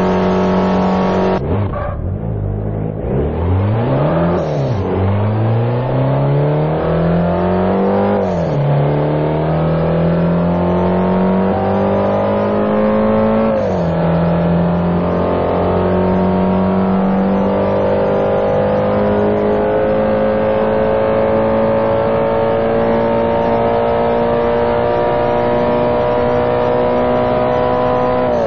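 Hyundai Veloster's four-cylinder engine accelerating through the gears: after a quick rev up and back down, the engine note climbs steadily, drops sharply at two upshifts about a third and half way through, then rises slowly in a long pull. A steady drone is heard before the acceleration begins.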